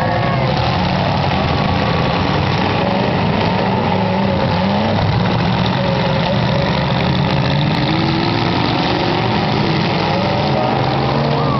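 Several demolition derby cars' engines running and revving together as the cars push and ram in the arena: a loud, steady mechanical din.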